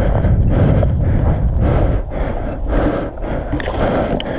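Low rumbling noise on a body-worn camera's microphone, with irregular rustling and scuffing from the player moving. It is heaviest in the first couple of seconds and eases after that.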